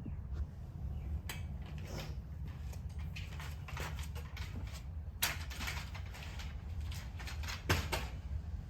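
Irregular rustling and small sharp clicks of laundry being handled and hung up, over a steady low rumble.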